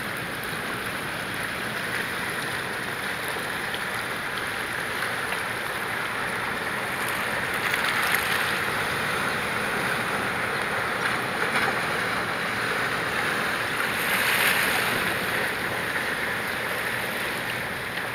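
Sea water washing in small waves, a steady rush that swells every few seconds, with some wind on the microphone.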